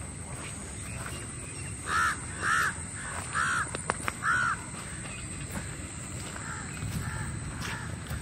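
A crow cawing four times in quick succession, followed by a few fainter caws. Two sharp clicks come just before the last loud caw.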